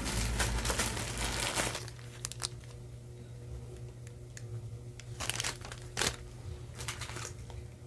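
Crinkling and rustling of packaging as small jewelry pieces are handled: dense for about the first two seconds, then a few separate crinkles, over a faint steady hum.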